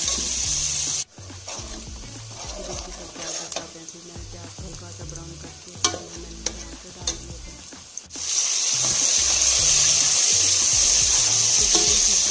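Chopped onions sizzling in hot oil in a steel pot as a steel spoon stirs them, with a few sharp clicks of the spoon against the pot in the middle. The sizzle is quieter in the middle and steady and louder from about eight seconds in, with chopped tomatoes in the pot near the end.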